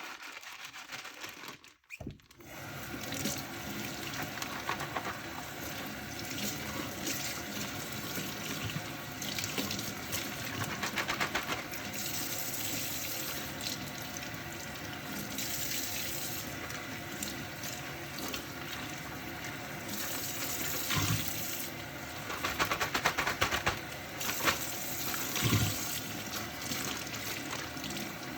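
Kitchen tap running into a sink while dishes are washed by hand, with louder spells of splashing. A few knocks of dishes come near the end.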